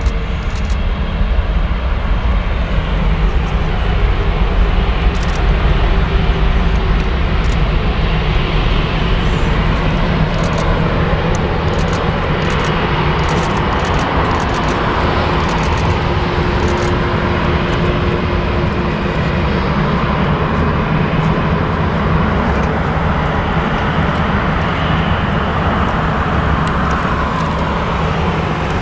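Airbus A330neo's Rolls-Royce Trent 7000 turbofan engines at taxi power as the airliner taxis past: a steady jet rumble and hiss with a low hum, a little louder at first while it is closest.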